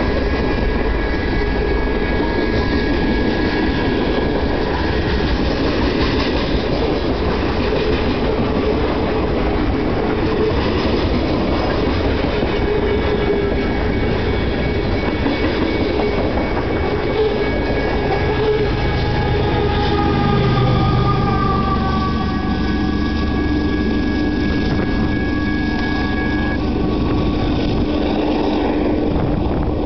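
Freight train's cars rolling on the rails with a steady rumble and clatter of wheels, passing close and then moving away up the line. Thin high steady squealing tones run through most of it and stop a few seconds before the end.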